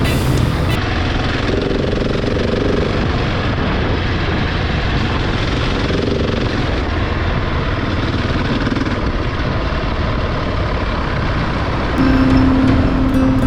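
Husqvarna 701 Enduro's single-cylinder engine running steadily under way, with a dense, even rumble. It gets a little louder, with a steady tone, near the end.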